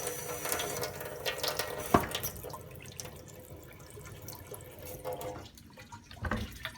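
Kitchen sink faucet running water with a steady hiss, shut off with a sharp click about two seconds in. A thump near the end.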